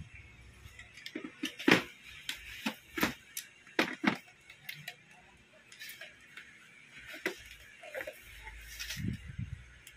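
Scattered clicks and light knocks of plastic blender parts being handled and fitted together, with the loudest knocks a little under two seconds in and again around three and four seconds.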